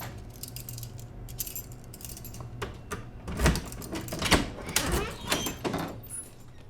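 Clattering handling noises: a string of sharp clicks and knocks with a metallic jingle, the loudest about three and a half and four and a half seconds in.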